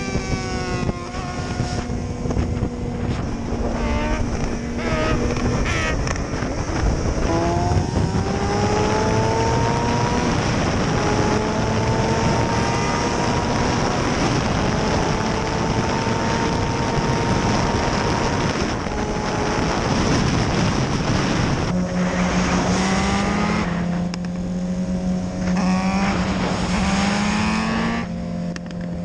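Sport bike engine under hard acceleration at highway speed, its note climbing in pitch over several seconds through the gears, with heavy wind rush on the microphone. Near the end it settles to a steadier, lower engine note.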